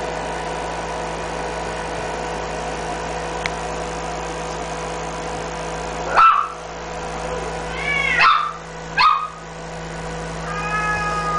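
Smooth-coat Chihuahua puppy yipping: three short, high, sharp yips about six, eight and nine seconds in, then a faint short whine near the end, over a steady hum.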